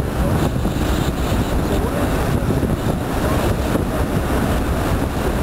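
Steady low rumble of a tugboat's engine as it passes close by, mixed with wind on the microphone.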